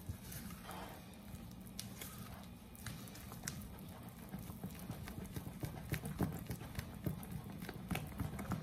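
Spatula folding thick madeleine batter in a bowl: soft, irregular taps and scrapes against the bowl, with the wet squish of the batter.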